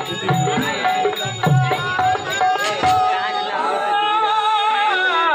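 Tamil village stage-drama music: a hand drum beats with small jingling cymbals over a held note. About three seconds in the drumming stops and a wavering, ornamented melody carries on.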